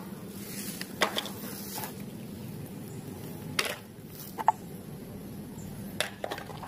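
Mud-coated plastic toys handled and set down in a tray: a handful of short, sharp knocks and wet clicks over a faint steady hum.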